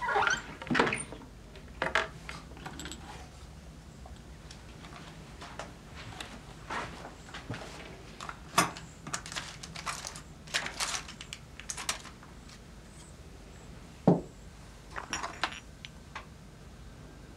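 Small objects being handled: scattered, irregular clinks, clatters and rattles like dishes and utensils, with one louder knock about fourteen seconds in.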